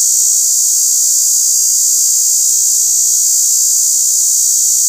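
A cicada buzzing loud and steady, one high unbroken drone with no rise or fall: a racket.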